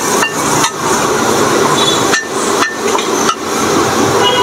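Stir-fried baby clams being scraped and knocked out of a metal frying pan onto a plate: a loud, scratchy metal-on-metal sound in several strokes separated by short breaks.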